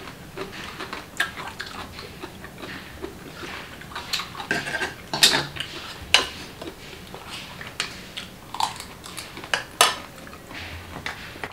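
Chopsticks and spoons clicking and clinking against ceramic bowls, a glass dish and clam shells in irregular sharp taps during a meal. The loudest clinks come a little past five, about six and about ten seconds in.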